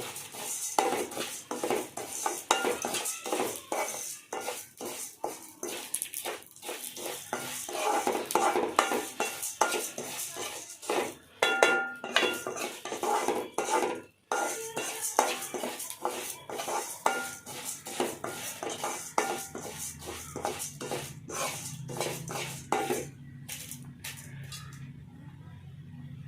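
Spatula stirring and scraping split moong dal as it roasts in a little ghee in a pan: a busy, uneven run of clicks and scrapes against the pan, which stops about 23 seconds in, leaving a low steady hum.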